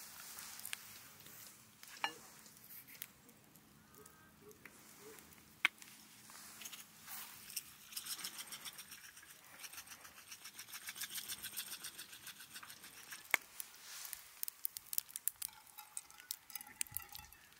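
A pepper grinder being twisted, giving a rapid, fine crunching rattle for several seconds in the middle, with a few sharp single clicks before and after.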